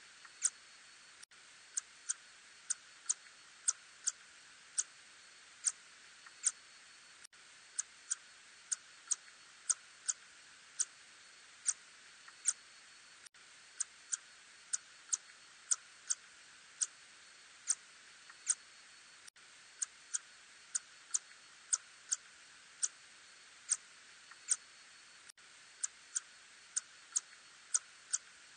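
Recording of the Ussuri tube-nosed bat (Murina ussuriensis) calling: short, sharp clicks at an irregular pace of roughly one to two a second over a steady hiss.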